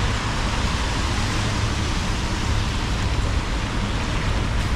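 Steady hiss of rain on a wet city street, with a continuous low rumble underneath.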